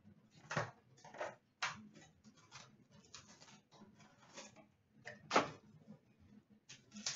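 Rustling and crackling as a sealed box of hockey cards is opened by hand, with a string of short crinkles of wrapper and cardboard. The sharpest crackle comes about five and a half seconds in.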